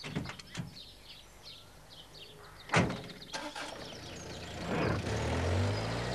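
Birdsong chirping, then a van door slamming shut about three seconds in, followed by the post van's engine starting up and running as it pulls away.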